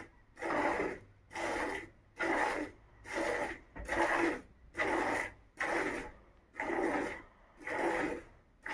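Cow being milked by hand: streams of milk squirting into a plastic bucket, a short swish a little more than once a second in an even rhythm.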